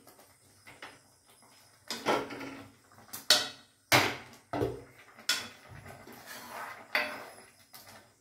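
Green plastic spatula stirring thick rice kheer in a metal kadai, scraping and knocking against the pan in about seven irregular strokes, roughly one a second.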